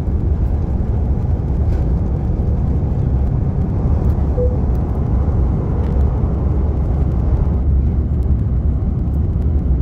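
Airbus airliner's jet engines at takeoff thrust, heard from a window seat inside the cabin: a loud, steady deep rumble through liftoff and the first seconds of climb. A brief short tone sounds about four and a half seconds in.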